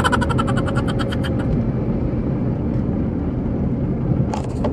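Vehicle driving on a road: a steady low rumble of engine and tyre noise, with a quick run of rapid clicks in the first second or so.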